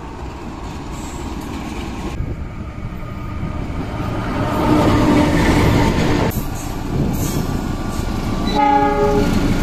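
Diesel locomotive hauling a passenger train passes close by, its engine and wheels on the rails growing louder to a peak about halfway through. A train horn sounds near the end, one steady chord lasting about a second.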